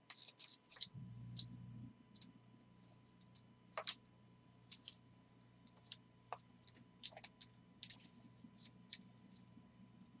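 Sports cards in plastic sleeves and toploaders handled and shuffled by hand: faint scattered clicks and taps of plastic and card, the sharpest about four seconds in.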